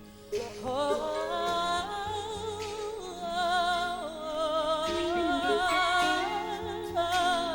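Gospel ballad intro: a woman's wordless vocal with a wide vibrato comes in about half a second in and holds long notes over a soft, steady instrumental accompaniment.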